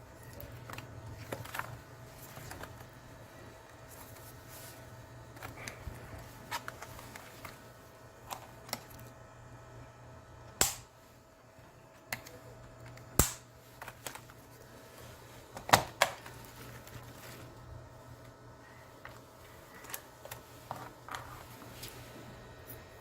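Keys on a Logitech K120 membrane keyboard being pressed: scattered, irregular clicks, with three louder clacks around the middle.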